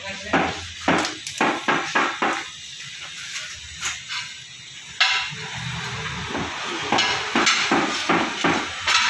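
Hammer blows in quick runs: a string of about seven knocks in the first two and a half seconds, a single sharp one about halfway through, and another run near the end.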